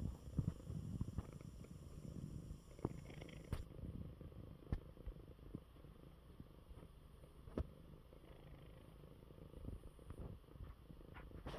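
A domestic cat purring softly and steadily as it rests curled up, with a few faint clicks scattered through.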